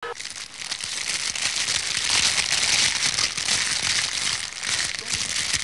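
A campfire crackling and hissing: a dense stream of fine irregular pops that swells in the middle.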